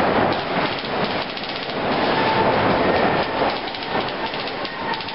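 Paintball markers firing in rapid strings of shots, several a second, over a steady noisy din, with the firing thickest early on and again toward the end.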